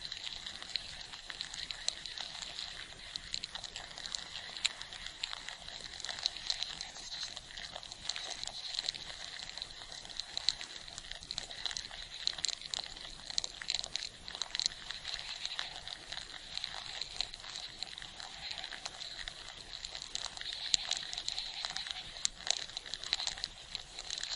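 Ants swarming, heard as a steady, dense crackle of tiny clicks and rustles with a high, hissy edge.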